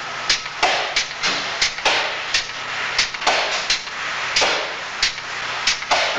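An irregular series of sharp knocks, two or three a second, like hammer blows, over a steady hiss.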